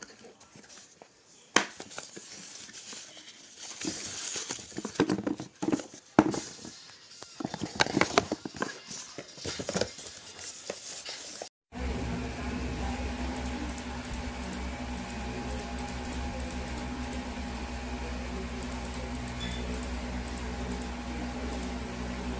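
Irregular knocks, clicks and rustling from handling. After a sudden cut about halfway through, a steady machine hum with a low drone takes over.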